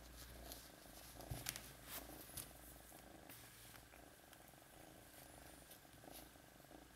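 Tabby kitten purring faintly and steadily as it is stroked. A few light clicks and taps come between about one and two and a half seconds in.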